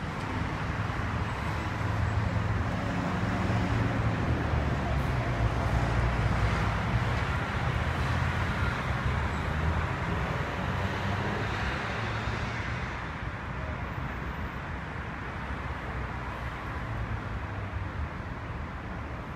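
Street traffic noise: a steady low rumble of passing vehicles under a hiss of road noise, loudest in the first half and easing off after about thirteen seconds.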